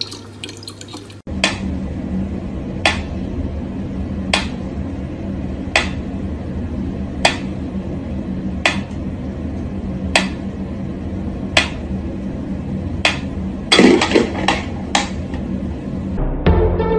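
Mechanical pendulum metronome ticking slowly and evenly, about one tick every second and a half, with a brief run of quicker clicks and knocks near the end.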